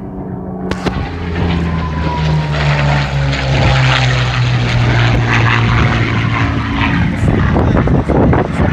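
Hispano Buchón's Rolls-Royce Merlin V12 piston engine as the fighter flies past. The note grows louder and drops in pitch over the first few seconds as it passes, then stays loud and rough.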